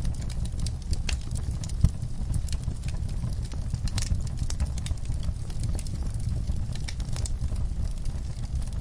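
Wood fire crackling, with frequent sharp pops and snaps over a steady low rumble; one louder pop about two seconds in.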